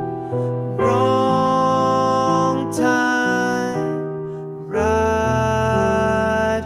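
Slow soft rock ballad music with long held notes over sustained chords, a new phrase entering about a second in and another just before five seconds.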